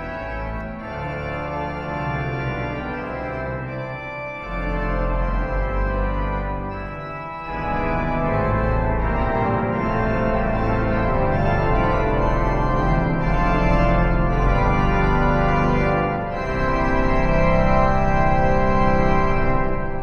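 Pipe organ playing sustained full chords on the swell chorus reeds of the 1912 Harrison & Harrison organ, the reeds added one by one so the sound builds in steps, growing fuller about 4.5 and 7.5 seconds in, toward the enclosed 32-foot trombone. The final chord cuts off at the very end.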